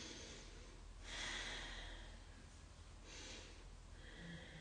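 A woman's audible breaths during a paced neck stretch: a short breath at the start, a longer, louder breath about a second in, then another short breath around three seconds and a fainter one near the end.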